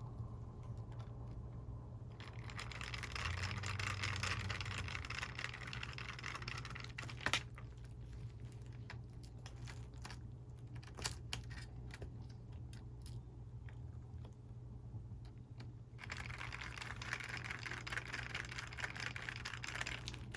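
Screws being driven back into a monitor's frame with a screwdriver: two stretches of scratchy turning a few seconds each, with scattered small clicks and taps of parts between them.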